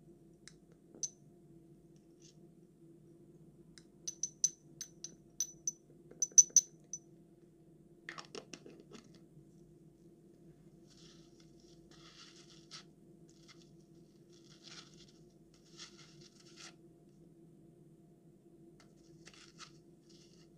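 Small glass clinks as a dropper taps the rim of a small glass jar and an ink bottle while ink is transferred, a quick run of bright ringing ticks about four seconds in. This is followed by a scrape and then soft handling rustles, over a faint steady low hum.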